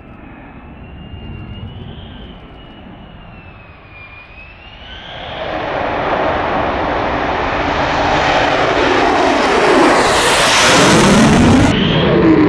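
F-35A Lightning II fighter on landing approach: its single F135 jet engine is at first a faint wavering whine, then swells about five seconds in to a loud jet rush as it passes close, with a sweeping change in pitch. The sound changes abruptly shortly before the end.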